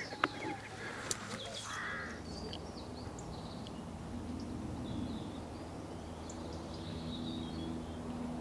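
Outdoor lakeside ambience: scattered short bird chirps and calls, with one harsher call about two seconds in, over faint low background noise.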